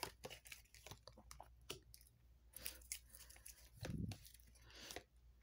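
Faint clicks and rustles of a tarot deck being handled in the hand, cards tapping and sliding against each other, with a soft low thump about four seconds in.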